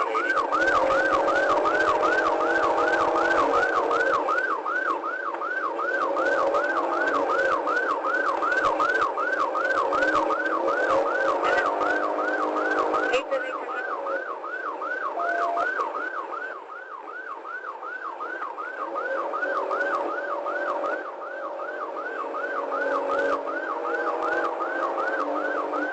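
Police car siren on the fast yelp setting: a rapid rising-and-falling wail repeating about three times a second, without a break.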